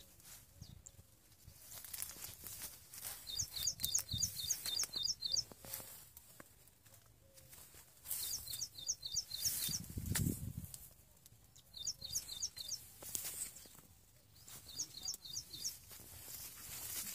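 A songbird singing four short phrases of quick, repeated high downward-slurred notes, over the rustle of cotton plants brushing past as someone walks through the crop, with a brief low rumble about ten seconds in.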